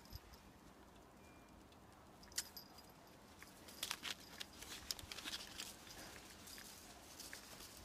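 Faint rustling and light clicks as a cat grabs and bites at a dangled strap on grass, heavier from about four seconds in.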